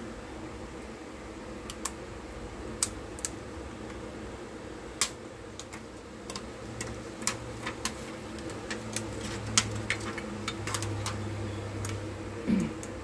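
Irregular sharp clicks and taps, a couple of dozen of them, as a Samsung Galaxy phone's metal mid-frame and the metal clamping bars are fitted into a screen-repair alignment jig, over a steady background hum.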